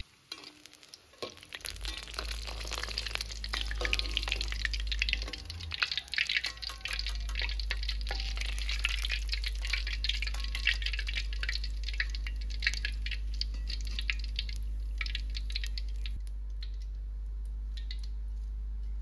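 Tempeh sizzling and crackling as it deep-fries in hot oil in a wok, turned with a metal spatula and skimmer; the crackle thins out and dies away near the end as the pieces come out of the oil, leaving a few separate clicks. A steady low hum runs underneath.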